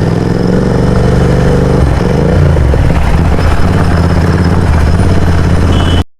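Royal Enfield GT650's parallel-twin engine running steadily through a Mototorque aftermarket exhaust, its pitch shifting briefly about two seconds in. The sound cuts off suddenly just before the end.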